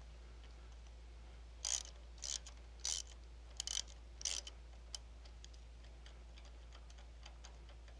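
Ratchet wrench clicking in about six short strokes, roughly one every half second, as the electric starter's mounting bolts are loosened on a small mower engine.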